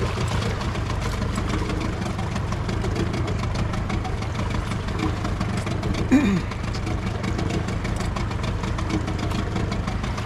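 Boat engine idling steadily, with a fast even beat.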